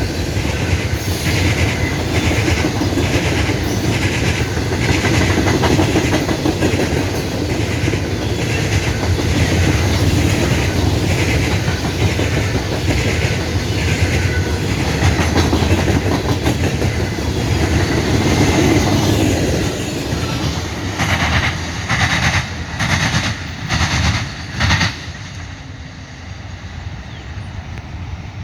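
Freight cars rolling past, their wheels clicking over the rail joints in an even rhythm under a steady rumble. A last few louder clacks come about 21 to 25 seconds in, and then the sound dies away as the end of the train passes.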